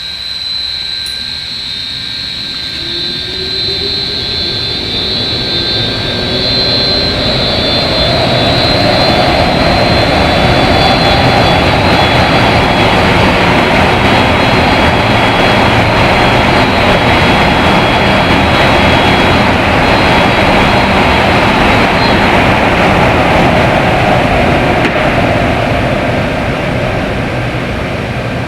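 Polypropylene centrifugal fan (VR-PP 80-75) spinning up, its pitch rising over the first several seconds, then running steadily at full speed with a loud rush of air, on a test run after balancing.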